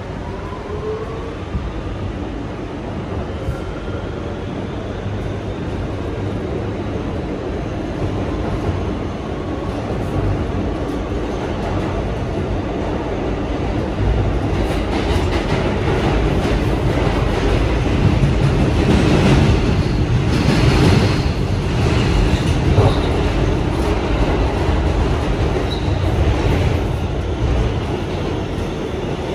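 Kawasaki R211T subway train running, heard from inside the car. A rising whine comes through in the first few seconds as it picks up speed. From about halfway through the running noise grows louder, with rattling and clatter from the wheels and rails.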